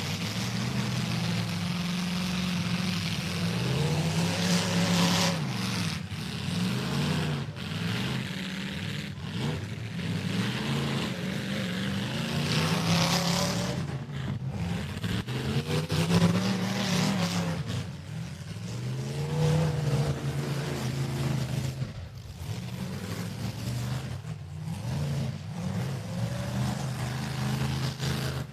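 Demolition derby car engines revving up and falling back again and again as the cars back up and charge, the pitch rising and dropping every few seconds.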